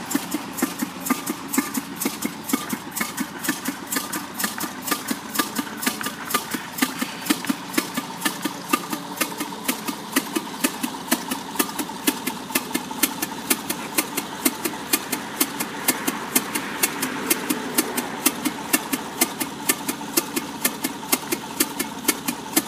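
1920s American Blower Co. vertical 7x7 double-acting steam engine running on a test run, with a steady, regular beat of sharp strokes, about two a second.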